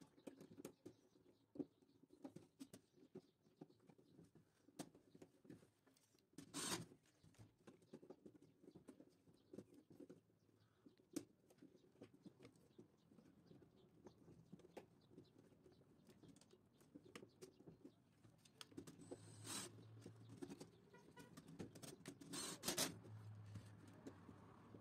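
Faint handling sounds of wiring work on circuit breakers: scattered light clicks and scratches as wires are fitted to the breaker terminals, with a few louder scrapes about seven seconds in and again near the end.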